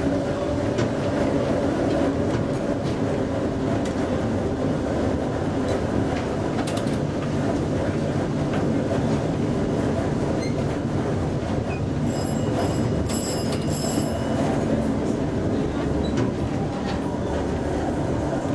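Vintage SS A1 electric tram, an ASEA car modernised in 1926, running along street track, heard from the driver's cab: a steady rumble of wheels on rail and running gear. A few short high-pitched rings come about two-thirds of the way in.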